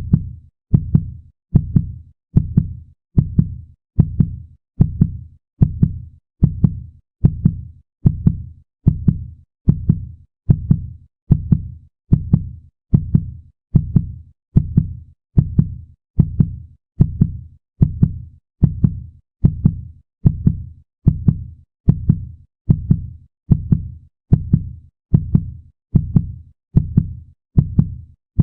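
Heartbeat sound effect: deep lub-dub double thumps repeating at a steady even pace.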